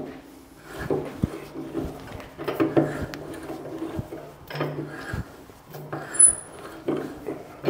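Hand tap turned with a tap wrench, cutting a thread for a boiler stay in the steel firebox plate. Metal-on-metal scraping comes in short, irregular strokes as the wrench is worked round and backed off, with an occasional sharp click.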